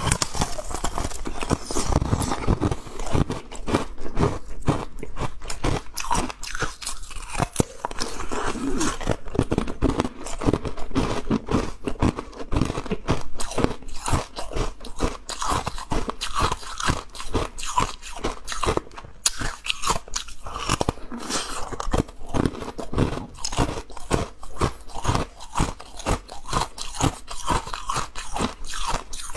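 Blue-coloured ice cubes being bitten and chewed: a dense, continuous run of sharp cracks and crunches as the ice snaps between the teeth.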